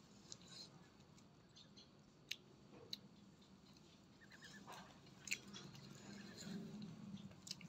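Faint mouth sounds of a person eating fruit: wet chewing with a few sharp smacks or clicks scattered through.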